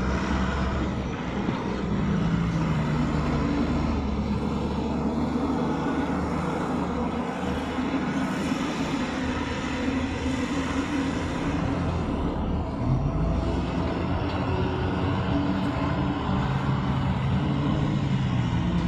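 Tata 340 backhoe loader's diesel engine running under working load. Its pitch rises and falls as it is revved, climbing noticeably about two-thirds of the way through.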